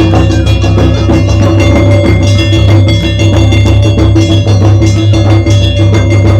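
Japanese taiko drum ensemble playing a fast, loud, driving beat, with rapid strikes layered over other percussion.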